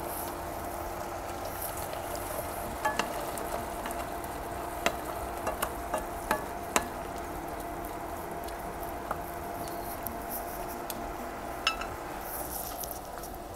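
Spatula stirring tuna and chopped pechay stems in a simmering sauce in a nonstick wok: a soft sizzle, with sharp taps and scrapes of the spatula against the pan, most of them between about three and seven seconds in. A steady hum runs underneath.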